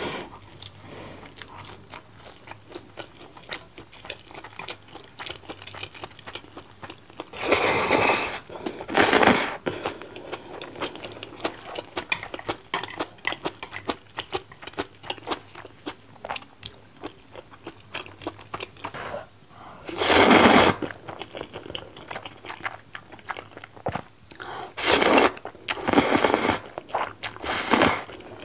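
Close-miked eating: chewing and crunching of fried dumplings and instant ramen noodles, with small wet clicks throughout. About five loud slurps break through, one of them more than a second long.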